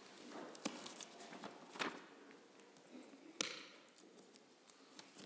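Faint scattered wooden knocks and shuffling as a congregation gets to its feet from its seats, with the loudest knock about three and a half seconds in.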